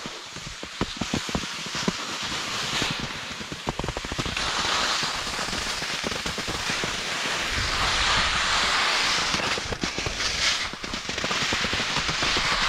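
Skis sliding and scraping over snow, a continuous crackling hiss with many small clicks and knocks, picked up close to the ski boot.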